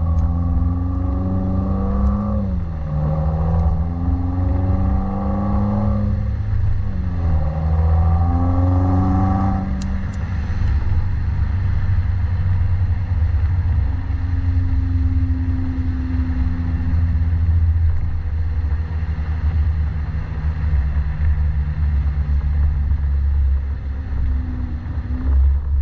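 2018 Subaru WRX's turbocharged 2.0-litre flat-four through a Nameless axle-back exhaust, heard from inside the car while driving. The revs climb and drop back twice, then from about ten seconds in they settle into a steady low drone.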